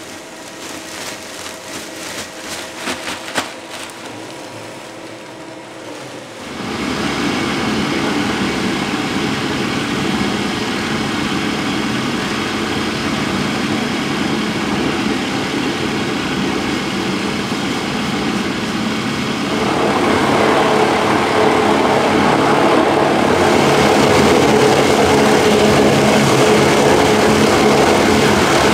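Industrial bowl cutter chopping chicken meat for sausage. A few seconds of light clatter and knocks come first, then about six seconds in the machine starts with a sudden jump to a loud, steady mechanical noise of the spinning bowl and knives. The noise grows louder again about twenty seconds in.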